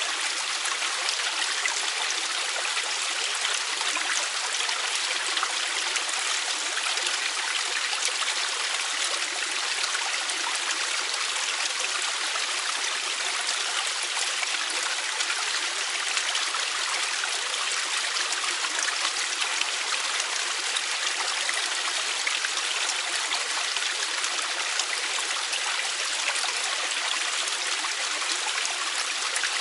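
Mountain valley stream flowing, a steady, even rush of water that does not change.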